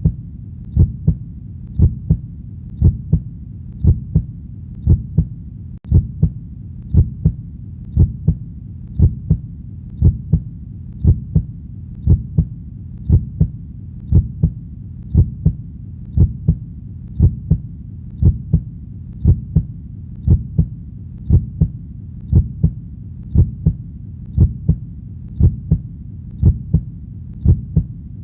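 Heartbeat: a steady double thump, lub-dub, about once a second over a low, continuous hum.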